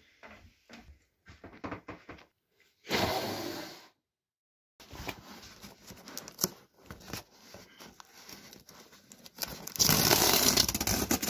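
A cardboard parcel being handled and opened: scattered taps and scrapes, a short loud rustle about three seconds in, then packaging being torn open, loudest near the end.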